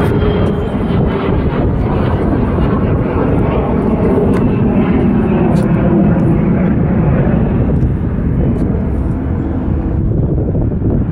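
A jet aircraft climbing out after takeoff, its engines a loud, steady rumble that swells to its loudest about halfway through and eases off toward the end.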